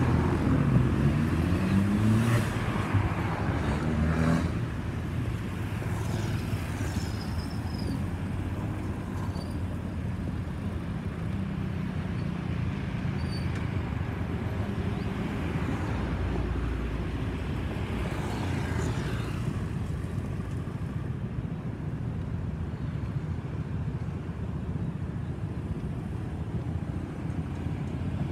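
Road traffic: a nearby vehicle's engine rising in pitch as it accelerates in the first few seconds, then a steady traffic rumble.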